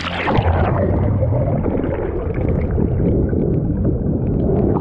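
Splash as an action camera goes under the sea surface, then the dense, muffled rushing and gurgling of seawater around the submerged camera housing.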